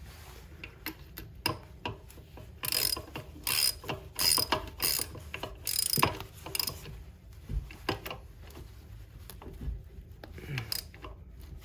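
Ratchet wrench clicking in quick runs of strokes as bolts are tightened down, busiest in the first half, then a few scattered clicks.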